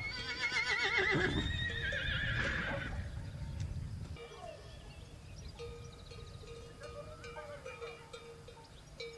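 A horse whinnying once: a long, quavering call that starts high and falls in pitch, dying away about two and a half seconds in.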